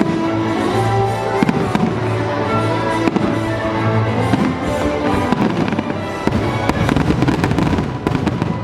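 Rapid bangs and crackling pops over loud show music. The pops grow denser and faster during the second half.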